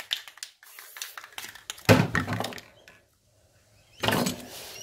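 Spray paint cans being handled on a cluttered work table: a few light knocks and rattles, a heavy thunk about two seconds in, and a short burst of rustling noise near the end.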